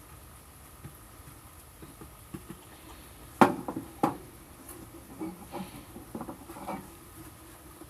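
Scattered light clicks and knocks, the loudest two coming about three and a half and four seconds in.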